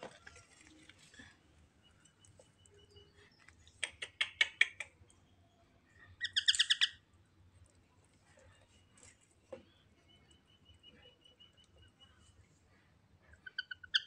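Young parakeets calling: a quick run of about six short chirps about four seconds in, then a louder held squawk about two seconds later, with faint rapid chirping at other times.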